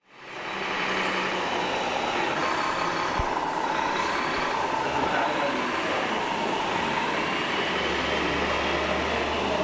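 Radio-controlled scale model trucks running: a steady mechanical drone, with a low hum joining near the end.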